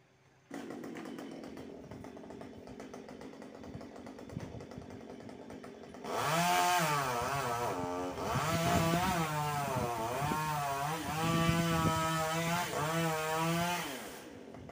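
Chainsaw engine running at a low level, then revved hard from about six seconds in for roughly eight seconds as it cuts wood, its pitch dipping and rising repeatedly under load before dropping back near the end.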